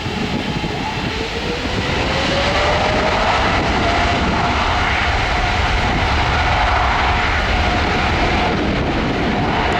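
Boeing 777-300ER jet airliner's GE90 engines at take-off power: a loud, steady rumble with a whine that rises in pitch over the first few seconds, then holds.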